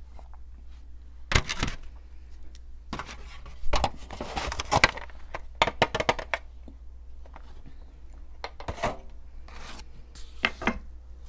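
Close-miked ASMR handling sounds around mochi ice cream: irregular bursts of rubbing and scratching with sharp taps, over a low steady hum.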